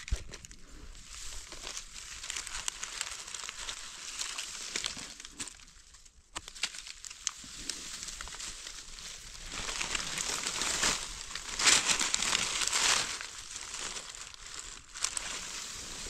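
Dry fallen leaves and grass rustling and crackling as gloved hands push through the leaf litter. There are many small crackles, loudest about ten to thirteen seconds in.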